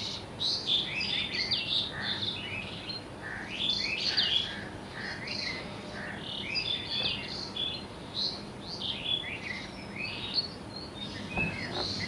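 A chorus of small birds chirping and tweeting: many quick, overlapping high calls and short falling notes, without a break.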